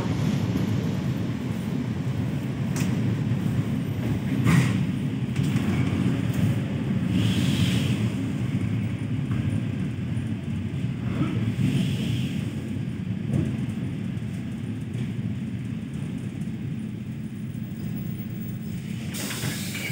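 ED4M electric train running on the rails, heard from inside a passenger car: a steady low rumble of wheels and bogies with a few sharp clacks over rail joints. The rumble grows quieter through the second half as the train slows, and a hiss starts near the end.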